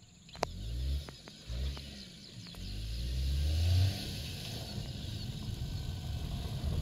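Maruti Suzuki Alto 800's small three-cylinder petrol engine revving in rising bursts: a sharp click near the start, two short revs, then a longer climb of about a second and a half that falls away about four seconds in. After that the engine runs steadily under way.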